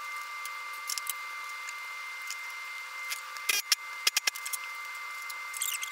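Pneumatic rivet squeezer setting solid rivets through the aluminium skin into the stabilizer stringer: short sharp clicks with brief air hiss, in small clusters about a second in, around three and a half to four and a half seconds, and near the end. A steady high hum runs under it.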